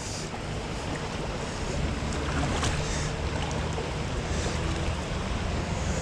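Steady rush of shallow river current running over rocks, an even hiss that swells slightly over the few seconds.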